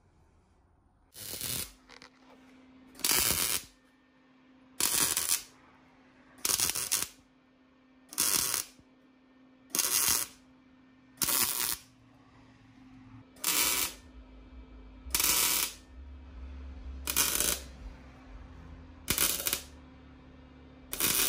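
Lincoln Electric Square Wave TIG 200 welder striking its arc on exhaust pipe in short welds, about a dozen loud crackling hisses, one roughly every two seconds and each under a second long. A steady low hum from the welding machine runs underneath from about two seconds in.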